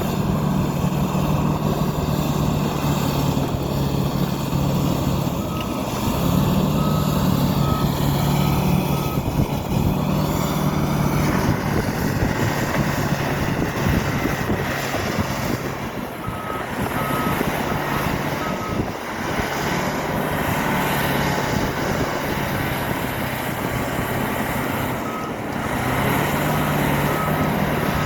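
Bulldozer diesel engine running steadily, with a reversing alarm beeping in three spells of about one and a half beeps a second as the machine backs up.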